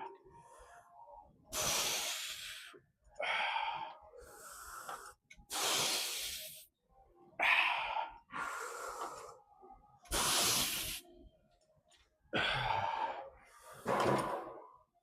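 A man breathing hard and forcefully through a set of heavy lifting: a run of hissing breaths in and out, each about a second long, coming every second or two.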